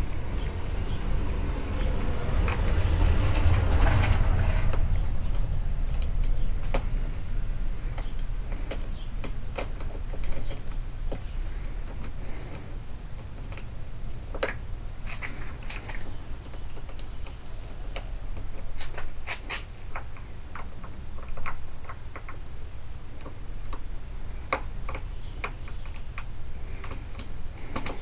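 Small metal clicks and taps of hand tools working a car trunk lock cylinder, scattered and irregular. A few seconds of rubbing handling noise at the start.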